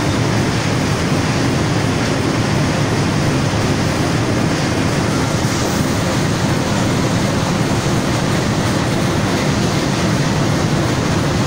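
Corrugated cardboard production line running, with its beater stacker stacking board sheets: a loud, steady, even machine din with no separate knocks standing out.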